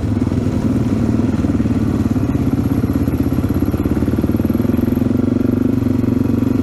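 AJP PR7's single-cylinder engine running steadily under way, heard from on board the motorcycle, with a fast, even pulsing.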